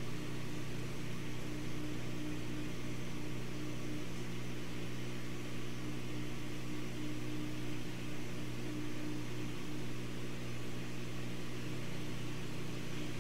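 Air-assist air pump running with a steady low hum while it blows air to the laser head during cutting.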